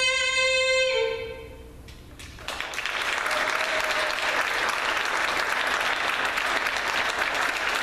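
A song's last held sung note ends about a second in; after a short pause, the audience breaks into steady applause.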